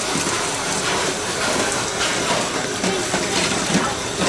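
Tap water running steadily into a stainless steel sink, with a sponge rubbing over a crab's shell now and then.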